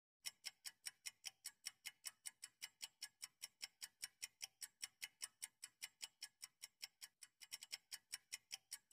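Clock-ticking sound effect marking a quiz answer countdown: faint, even ticks at about four a second.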